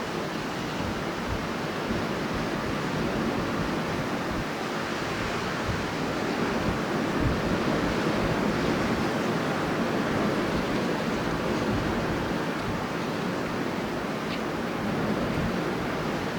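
Strong wind blowing steadily, a continuous rushing noise that swells a little in the middle and eases again.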